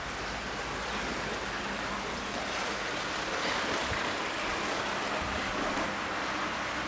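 Steady rushing noise with a faint low hum underneath, even throughout with no distinct events.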